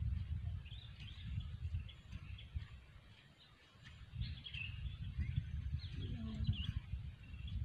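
Small birds chirping and calling repeatedly over gusting wind rumbling on the microphone; the wind drops away briefly about three seconds in.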